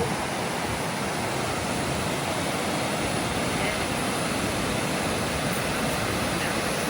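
Waterfall water rushing: a steady, even roar of falling and churning water with no break.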